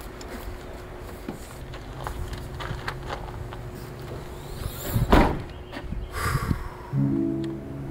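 A vehicle's rear liftgate pulled down and shut with one loud slam about five seconds in.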